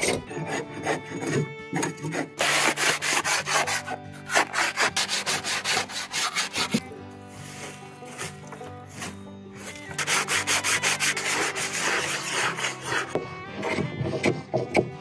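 Cypress wood being worked by hand with abrasive, in quick back-and-forth rubbing strokes across the canoe hull. The strokes ease off for a few seconds in the middle, then resume.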